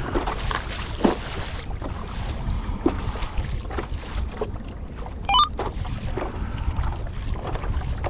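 Wind buffeting the microphone and choppy water slapping and splashing against the hull of a Hobie Lynx pedal kayak under way, with a steady low rumble. A brief high chirp sounds about five seconds in.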